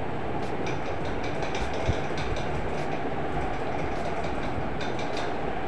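Steady low rumbling noise with faint, irregular light clicks over it.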